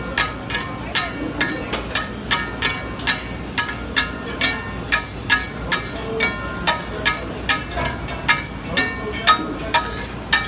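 Metal spatula striking a flat iron griddle in a steady rhythm, about two and a half ringing clanks a second, chopping and mashing the dosa filling.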